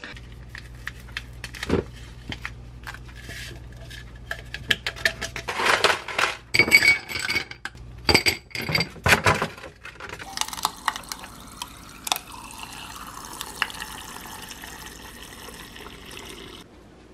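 Ice cubes clattering and clinking into a tall drinking glass, a loud run of sharp knocks. Then water from a dispenser spout pours steadily into the glass for about six seconds and cuts off suddenly near the end.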